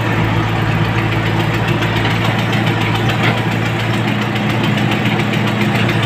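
JCB 3CX backhoe loader's diesel engine running steadily while the backhoe arm digs, heard from inside the operator's cab.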